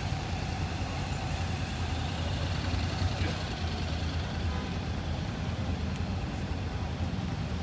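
Police escort motorcycle and slow procession vehicles driving past, their engines running with a steady low hum.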